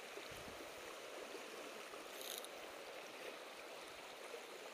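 River current running steadily over a shallow, rippling riffle, with a brief faint scratchy hiss a little over two seconds in.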